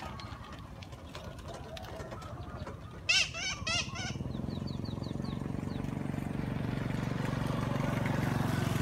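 A quick run of four loud, high chirping calls about three seconds in, followed by a few fainter high chirps. Then a low engine hum builds and grows steadily louder as a motor vehicle approaches.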